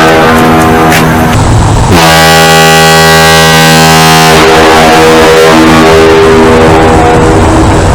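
Ship's horn blasting, boosted until it distorts and clips at extreme loudness. The horn breaks off briefly about a second and a half in and a fresh blast starts at about two seconds.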